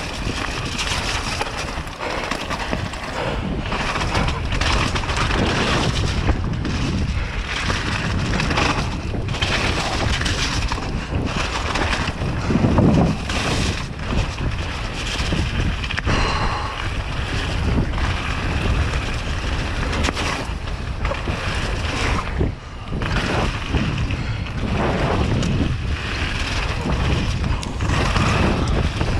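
Mountain bike descending a rocky gravel trail at speed: heavy wind rumble on the action camera's microphone over the constant crunch and rattle of tyres and frame on loose stones, with frequent sharp knocks from rock hits.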